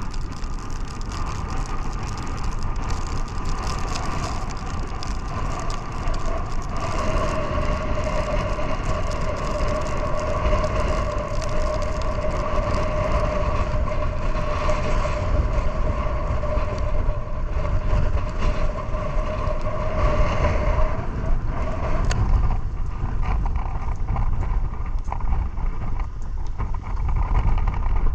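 A 150 hp outboard motor running with the boat under way, with wind buffeting the microphone and water rushing past the hull. A steady droning tone holds through the middle and stops about three quarters of the way through.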